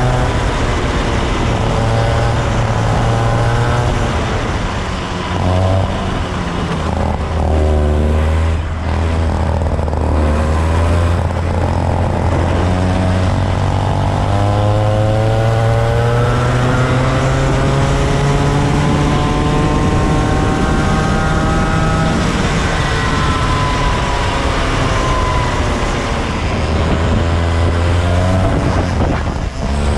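Racing kart engine heard onboard, revving hard down the straights and dropping in pitch as it brakes for the corners. It makes several quick lifts in the first ten seconds, then a long steady climb in pitch before falling away again near the end.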